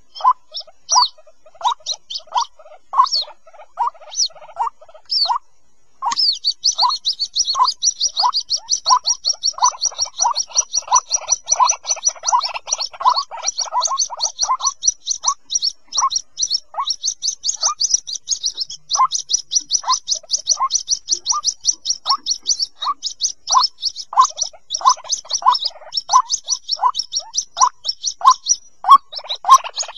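White-breasted waterhen chicks calling for their parent: short repeated calls about twice a second, joined about six seconds in by a dense run of rapid, high chirping that continues alongside them.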